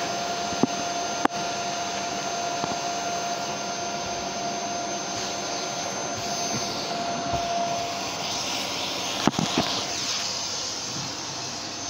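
Vacuum cleaner running steadily with a high whine, with a few sharp knocks: two about half a second and a second in, and more around nine seconds in.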